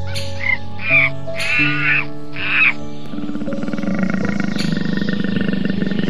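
Several short, high monkey calls, each rising and falling, over soft background music. About three seconds in, they give way to a big cat's low, rapidly pulsing rasp that continues steadily under the music.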